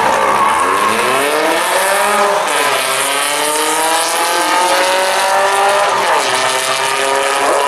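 Two street cars, a vintage Volkswagen Beetle and a white sports coupe, accelerating hard down a drag strip side by side. Engine pitch climbs through each gear and drops back at the shifts, twice.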